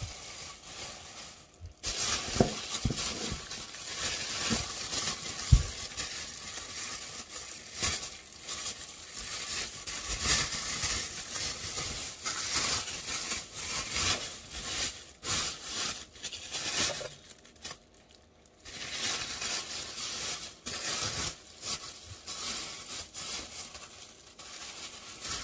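Clear plastic bag rustling and crinkling as raw halved pig heads are handled and pulled out of it, with a couple of dull knocks in the first few seconds.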